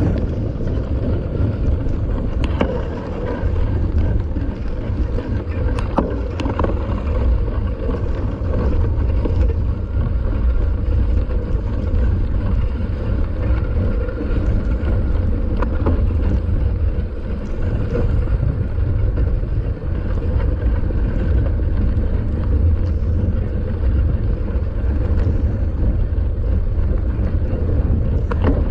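Steady wind rumble on a bike-mounted camera's microphone as a mountain bike is ridden along a beach, with a few sharp knocks and rattles from the bike.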